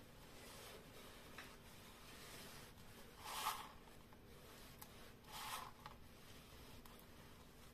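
Cloth rubbing over a clear plastic shaker dome on a paper card: two short scuffs, about three and five and a half seconds in, otherwise near silence.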